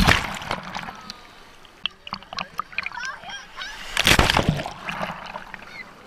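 Small surf waves breaking over swimmers and a camera at water level: a loud splash and rush of foamy water at the start and another about four seconds in. Short cries from the swimmers in between.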